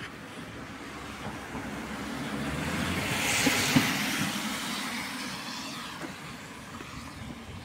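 A car driving past on a wet road, its tyre hiss swelling to a peak about halfway through and then fading away, with a short knock near the loudest point.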